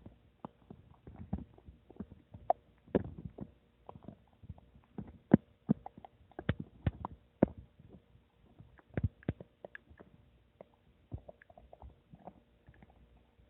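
Human stomach gurgling and rumbling: a string of irregular quick pops and gurgles, the loudest about five seconds in, growing sparser near the end.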